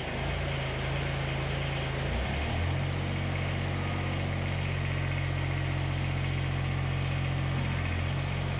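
Kubota BX25 compact tractor's three-cylinder diesel engine running steadily just after starting, working the front-loader hydraulics as the bucket is raised and tipped to the dump position. The engine note changes about two seconds in, and the engine shuts off abruptly at the end.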